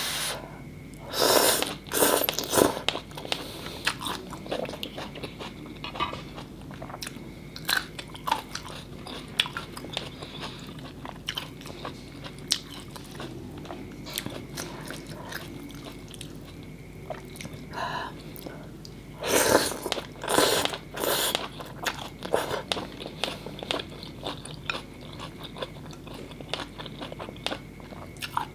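Close-miked eating of noodle soup with raw vegetables: steady chewing and crunching with many small clicks. There are clusters of louder, sudden bites about a second in and again around twenty seconds in.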